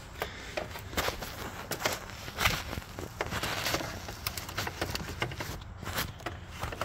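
Irregular light clicks, taps and rustling of hands handling an alternator and a measuring tool.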